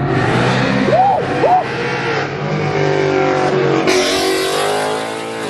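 Loud exhaust of a muscle car accelerating hard away, engine pitch climbing as it pulls. Just before four seconds in, a red Ford Mustang drives by close.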